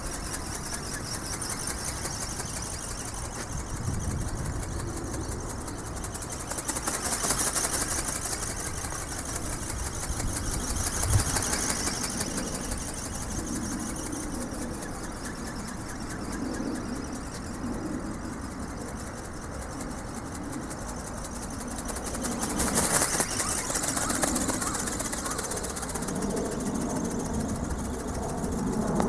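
Electric RC ornithopter's geared brushless motor whirring and its wings flapping as it flies overhead, growing louder a few times as it passes near. Wind and rain noise sit under it on the microphone.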